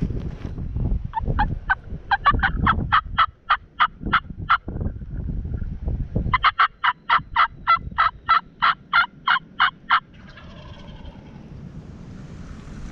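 Wild turkeys calling close by: two long runs of quick, evenly spaced yelps, about five a second, with rustling thumps underneath.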